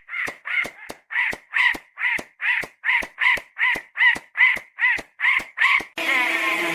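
A fast, evenly spaced run of harsh caw-like animal calls, about three a second, each with a short rise and fall in pitch. It starts and stops abruptly, as an edited-in clip would.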